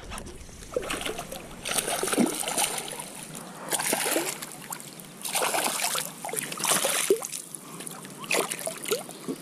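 Water splashing and sloshing at the bank in repeated surges about every second or so, with small gurgles between them.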